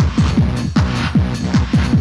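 Fast early-1990s hardcore techno from a DJ mix tape: a heavy kick drum pounding about four times a second, each beat sliding down in pitch, with hissing percussion above.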